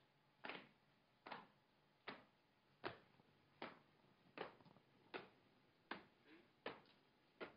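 Boots of a small squad marching in step on paving stones: faint, sharp stomps in an even cadence, about one every 0.8 seconds.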